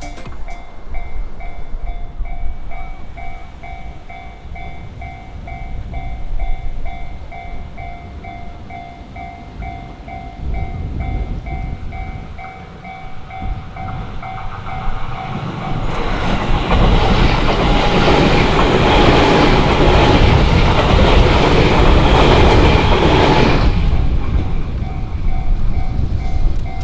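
Japanese railway level crossing alarm bell ringing in a steady repeating pattern. About sixteen seconds in, a train runs over the crossing for about eight seconds with rumble and wheel clatter that drown the bell, and the bell is heard again once the train has gone.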